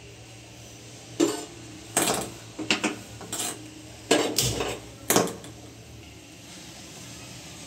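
Kitchen utensils clattering: about seven sharp clinks and knocks of metal pots, pans or cutlery in quick, uneven succession, stopping about two-thirds of the way through.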